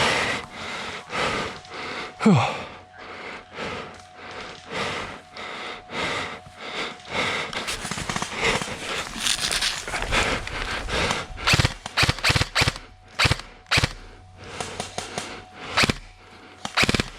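Airsoft guns firing: sharp clicking shots at irregular intervals, some in quick clusters.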